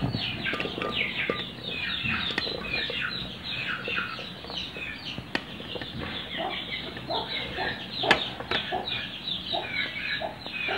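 Chickens clucking and peeping steadily in the background, many short falling calls. A few sharp knocks come as raw potato sticks are tipped from a plastic plate into an aluminium pot.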